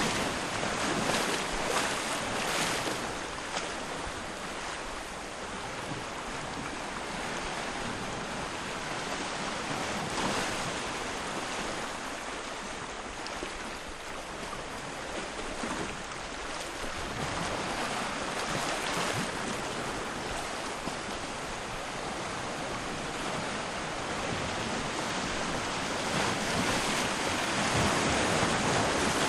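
Gentle sea waves washing on the shore at low tide, a steady rush of surf that swells and fades in slow surges every several seconds, loudest near the end.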